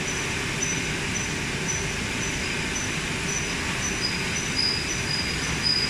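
Factory machinery of a bagging and palletizing line running with a steady mechanical noise, over which a high-pitched electronic beep repeats about twice a second. A second, slightly lower beep alternates with it and grows louder near the end.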